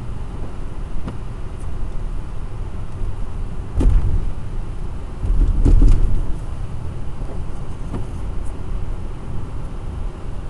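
Car driving on a wet road, heard from inside the cabin: a steady low rumble of engine and tyres, broken by a few thumps from bumps in the road, the loudest about four and six seconds in.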